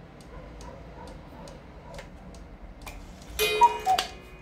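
Black Forest cuckoo clock ticking at about two beats a second. About three seconds in, it calls once: two falling whistle notes from the cuckoo pipes, ending with a sharp strike.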